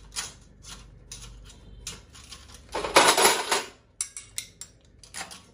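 Small metal parts and tools clinking and rattling as hands rummage in a tin of parts and plastic bags, with a louder rustling burst lasting about a second about three seconds in.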